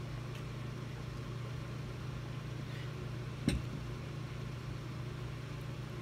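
Steady low hum in the room, broken a little past halfway by a single sharp knock of a drinking glass being set down on a table.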